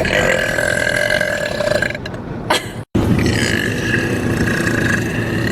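A woman letting out two long burps, the first lasting about two seconds and the second about two and a half, with a brief break between them.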